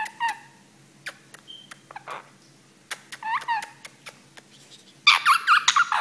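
Monk parakeet calling right at the microphone: a couple of short calls at the start and again about three seconds in, then a fast run of loud squawks in the last second. Sharp clicks are scattered throughout.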